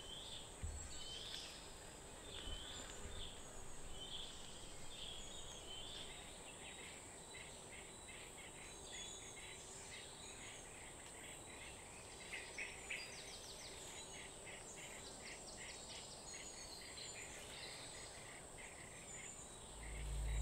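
Faint forest ambience: a steady high insect drone with many short bird chirps and calls throughout. A low drone fades in right at the end.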